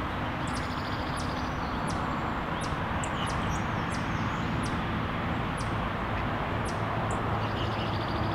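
Outdoor ambience: a steady rushing background with short, high-pitched chirps every second or so.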